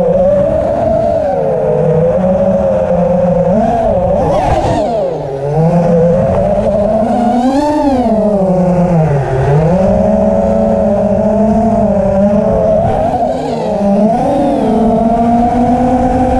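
FPV quadcopter's electric motors and propellers whining, the pitch swinging up and down with the throttle, rising sharply about halfway through and dropping low just after.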